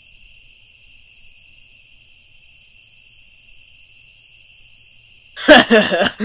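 Crickets chirring in a steady, unbroken trill during a pause. A loud voice breaks in about five seconds in.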